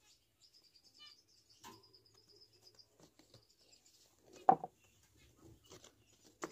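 Small handling sounds of a plastic mug and a playing card being moved on a wooden shelf, with one sharp knock about four and a half seconds in as the mug is gripped and lifted. A faint high chirping trill runs through the first three seconds.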